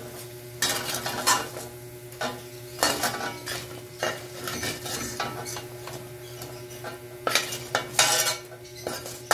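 Metal spatula scraping and knocking against a steel wok in irregular strokes as fried squid balls are turned and scooped out.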